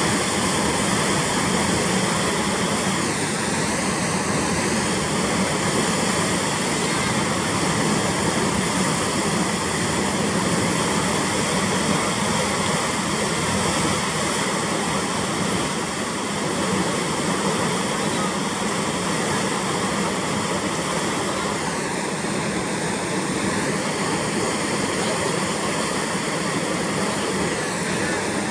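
Water rushing through the sluices at the base of a closed wooden canal lock gate, churning into white water in the chamber below as the lock levels: a loud, steady roar.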